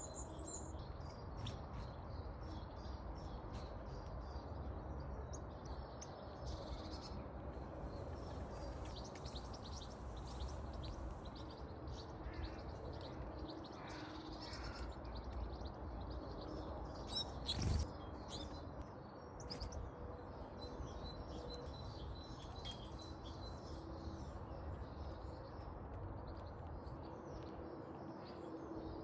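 Small garden birds chirping and calling in short notes throughout, over a steady low background rumble. A single sharp knock sounds about two-thirds of the way through.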